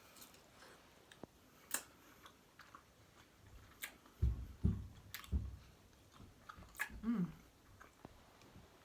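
Close-miked chewing and mouth sounds of eating: sharp wet smacks and clicks every second or two, a few low thuds of chewing around the middle, and a short throat sound near the end.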